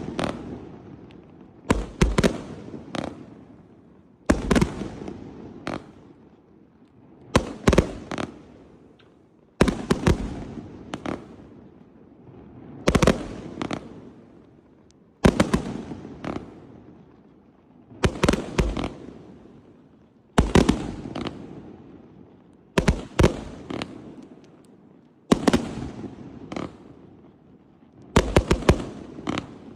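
100-shot, 500-gram firework cake firing: volleys of two or three sharp bangs roughly every two and a half seconds, each dying away over a second or so.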